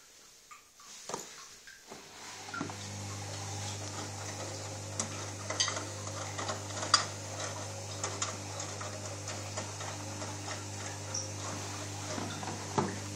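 Beko SMW 3508 TGK front-loading washing machine at the start of a 30° delicates wash. After a few faint clicks, a steady electrical hum and a hiss of running water set in about two seconds in, with scattered small clicks and clinks: the machine filling with water.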